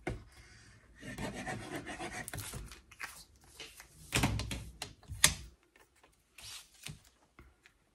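Sheets of card stock being handled and rubbed against each other on a table as layers are pressed down, with a dull thump and a sharp tap about four and five seconds in.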